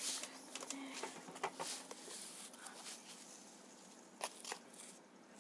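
Scattered light clicks, taps and short rustles of things being handled and moved about, with a couple of sharper clicks about a second and a half in and again near four seconds.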